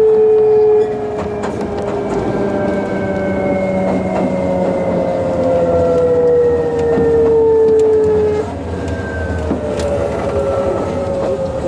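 Hitachi GTO-thyristor VVVF inverter and traction motors of a Sotetsu New 7000 series train heard from inside the car: a whine of several tones that falls slowly in pitch and jumps back up twice, at about one second in and near the end, over steady running noise.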